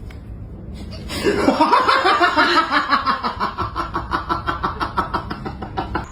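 A person laughing hard: a long, rhythmic run of laughs that starts about a second in and keeps going.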